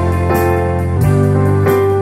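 A keyboard played by hand: sustained chords, with new chords struck about three times.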